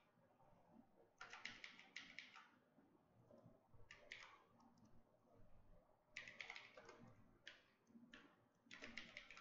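Faint computer keyboard typing in a handful of short bursts of quick keystrokes, with pauses between them.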